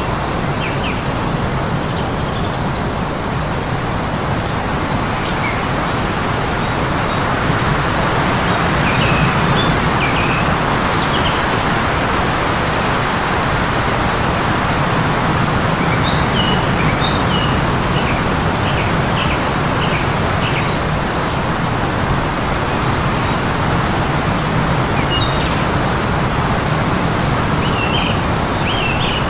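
Heavy blizzard wind blowing steadily, with small birds chirping now and then over it, including a quick run of short chirps a little past the middle.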